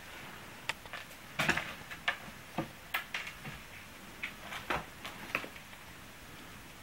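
A cat picking at the plastic caps that cover screw heads on wooden furniture: about a dozen irregular small clicks and taps. The loudest cluster comes about a second and a half in, and the clicking stops after about five seconds.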